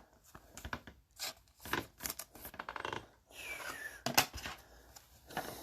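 Trading cards being handled: card stock sliding and rubbing against other cards, with scattered light clicks and taps.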